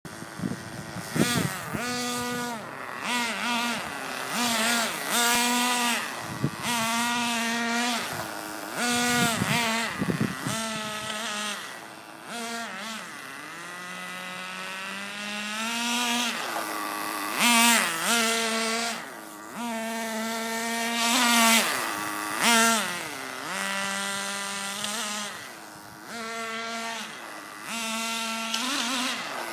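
Small two-stroke nitro engine of an RC car running and being revved again and again, its high buzzing pitch rising and dropping back with each blip of throttle, with one slower, longer climb about halfway through.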